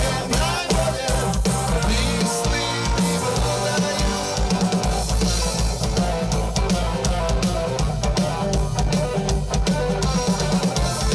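Live rock band playing an instrumental passage: electric guitar over a full drum kit, with the drums hitting hard and fast, especially in the second half.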